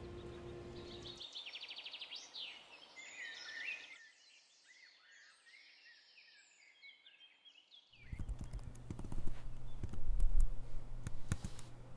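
Birds chirping in rapid series of high calls. About eight seconds in, this gives way to quick keystrokes on a laptop keyboard over a low hum.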